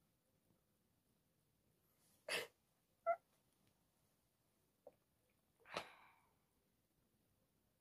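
A person sneezing twice, once a little over two seconds in and again near six seconds, with a short voiced sound and a faint click between the sneezes.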